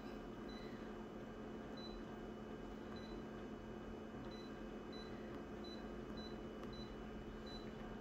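Short high-pitched confirmation beeps from an office multifunction copier's touchscreen as its keys are tapped, about nine of them at uneven intervals. Under them is a faint steady hum.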